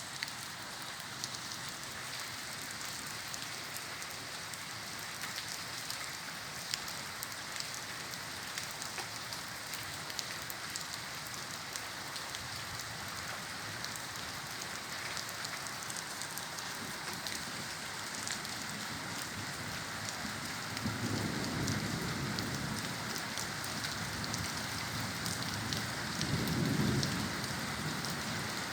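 Steady heavy rain falling and pattering on surfaces, with individual drops ticking throughout. Two brief low rumbles come in near the end.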